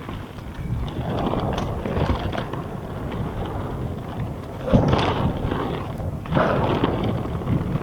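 Mountain bike riding down a dirt trail: tyres rolling over the ground, with rattling and knocks from the bike. Louder clatter comes about five seconds in and again about a second and a half later.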